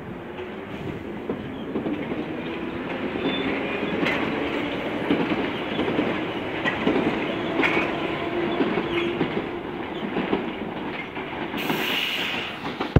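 London Underground Piccadilly line 1973-stock tube train pulling away from the platform: a steady rumble that builds and then fades, wheels clicking over rail joints with short squeals, and a hum from the traction motors. A hiss starts near the end.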